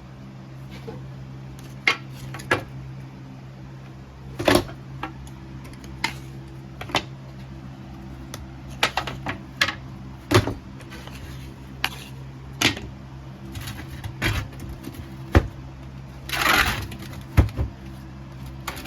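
Irregular sharp clicks and knocks of tools and hard objects being handled at a metal-casting bench, with a short scraping rustle near the end, over a steady low hum.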